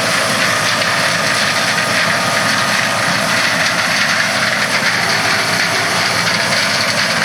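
John Deere 9650 STS combine harvester running steadily under load while harvesting corn, a continuous machine drone.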